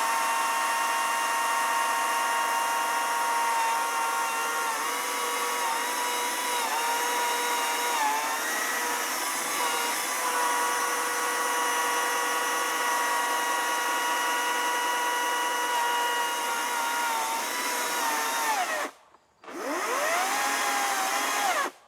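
Greenworks battery-powered electric chainsaw cutting through an oak limb, its motor whining steadily with brief dips in pitch under load. Near the end it slows and cuts out, starts again with a rising whine, then stops: the saw has become stuck in the cut.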